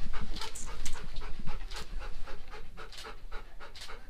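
Golden retriever panting in quick, even breaths, about four a second, a sign that he is excited.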